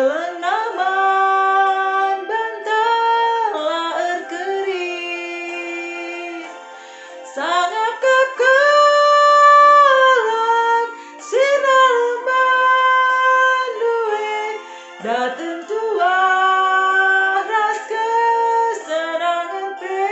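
A woman singing a hymn solo, holding long notes and gliding between them.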